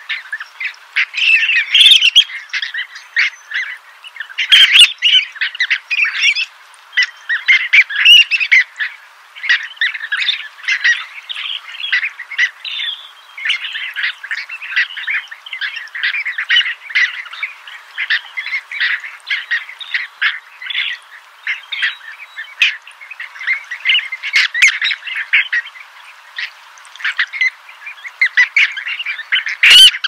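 A dense, unbroken chatter of many birds calling at once, short sharp calls overlapping one another with no pause, as played from a recording used as a hunting call.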